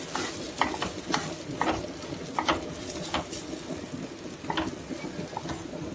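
Spatula stirring semolina with vegetables in a non-stick kadhai over the flame: a soft sizzle under irregular scrapes and taps of the spatula against the pan. This is the rava being dry-roasted for upma before the water goes in.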